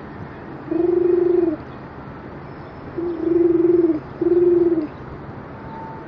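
A person imitating a pigeon's coo: three low, steady coos, one about a second in and then two close together around the middle.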